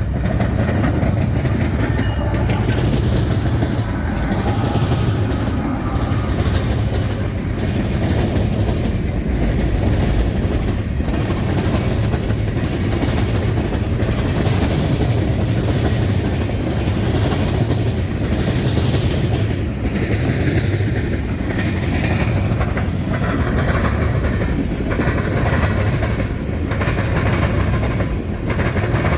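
A long freight train's cars rolling steadily past, their wheels clacking over the rail joints and the diamond crossing in a continuous loud run of clicks and rumble.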